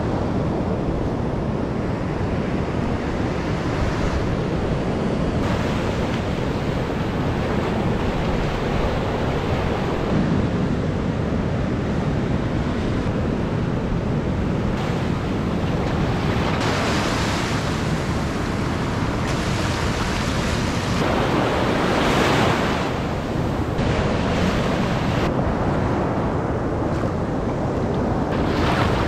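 Ocean surf breaking and washing up the beach, with wind buffeting the microphone. The wash swells louder a couple of times in the second half.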